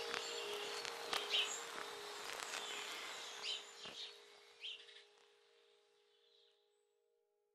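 Birds chirping over a held chord of soft background music, with a few separate chirps, the whole track fading out to silence about six and a half seconds in.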